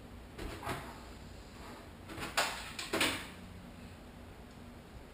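A few knocks and clatters of a kitchen cabinet being opened and rummaged through for a plastic container lid, the two loudest about two and a half and three seconds in.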